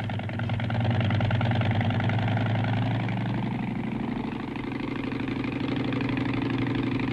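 A piston engine running steadily with an even, low drone.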